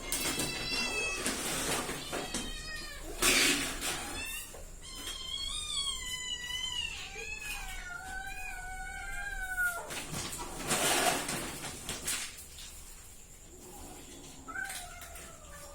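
Domestic cat meowing repeatedly: several short meows and one long, wavering meow of about five seconds in the middle, with another meow near the end. A few short noisy bursts fall between the calls.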